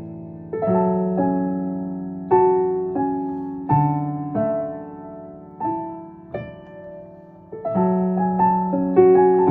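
Casio Privia PX-750 digital piano played slowly in its piano voice. Chords and single notes are struck about once a second, and each rings and fades before the next.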